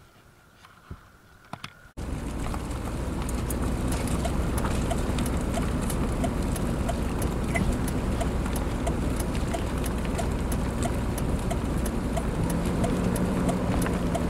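A vehicle's cabin noise while driving: a steady low engine-and-road rumble that cuts in abruptly about two seconds in, with a light regular ticking about twice a second over it. A low hum joins in near the end.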